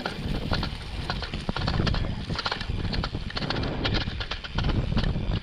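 Mountain bike riding down a rocky trail descent, with frequent sharp clatters and knocks as it bounces over stones, over a steady low rumble.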